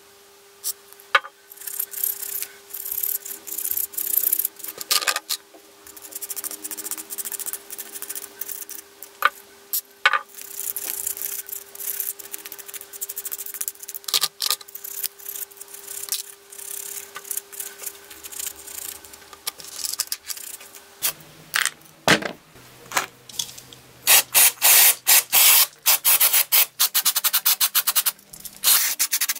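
Drill gearbox parts being cleaned by hand in a plastic bowl: short hisses of aerosol cleaner spray and clicks of small metal parts being handled, then a run of quick rubbing strokes as the parts are scrubbed near the end.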